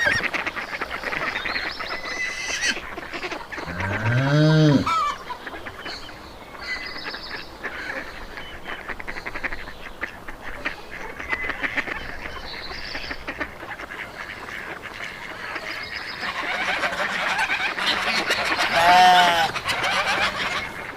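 Domestic geese honking amid a steady chatter of farmyard poultry calls. There is a loud single call about four seconds in, and the calls build up to another loud honk near the end.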